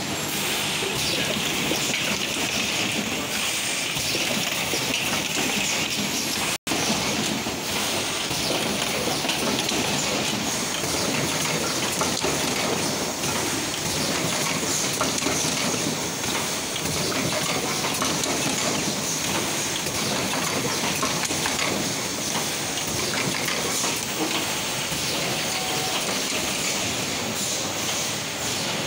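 Automated LED bulb assembly machines running on a factory floor: a dense, steady clatter of many small mechanical clicks with a hiss over it.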